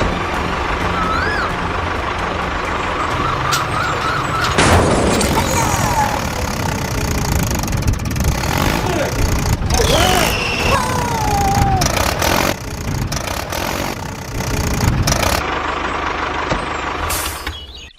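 Construction-vehicle engines running, with several loud knocks and clanks and a few short squeaky gliding sounds; it all cuts off just before the end.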